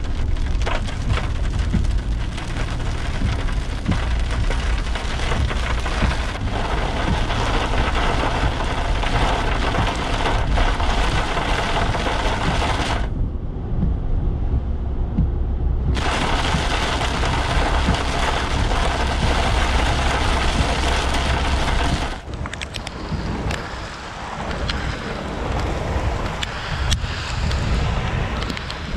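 Heavy rain hitting a moving car's roof and windshield, heard from inside the car over a steady low rumble of engine and tyres on a wet road. About halfway through, the rain noise cuts out for about three seconds while the car passes under an overpass, then returns. In the last several seconds it is lighter and more uneven.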